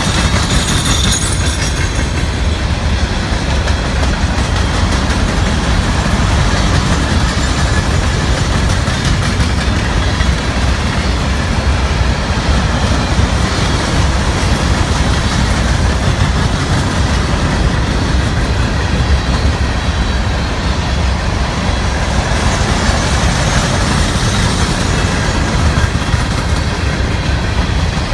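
Freight train cars rolling past close by: a steady run of steel wheels on rail.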